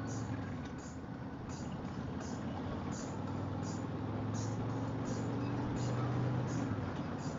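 Harley-Davidson Street Glide's V-twin engine running as the motorcycle rides off and speeds up, with wind and road noise. The engine note climbs over a few seconds and drops back near the end.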